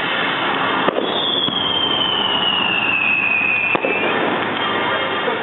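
Fireworks going off: steady crackling throughout, with a sharp bang about a second in and another near four seconds. Between the bangs a thin whistle falls slowly in pitch.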